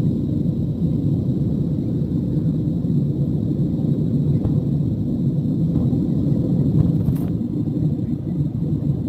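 Steady low roar of jet engines and rushing air heard inside an airliner cabin during the climb after takeoff.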